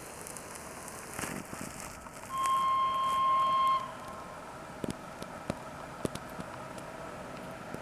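ChS7 electric locomotive sounding one steady, high-pitched blast of its warning horn, about a second and a half long, as it approaches. The train's faint steady hum runs underneath, with a few sharp clicks after the blast.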